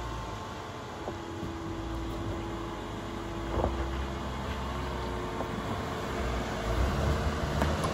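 Jeep Cherokee (KL) crawling slowly over trail rocks, its engine running steadily at low speed with a low rumble and a faint hum. A few light knocks come through as it works over the rocks.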